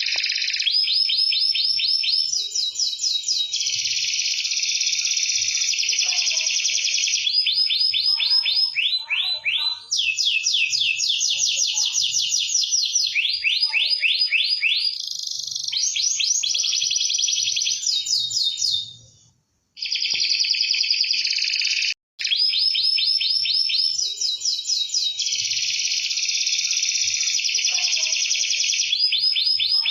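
Domestic canary singing loudly and without let-up in fast trills and rapid runs of repeated high notes, switching from one trill type to the next every second or two. The song drops out briefly a little after two-thirds of the way through.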